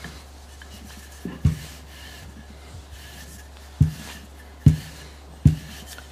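Tart pastry being rolled out with a wooden rolling pin and turned by hand on a wooden worktop: soft rubbing of the pin and hands over the dough, with about five short, dull knocks of wood on wood, the loudest in the second half.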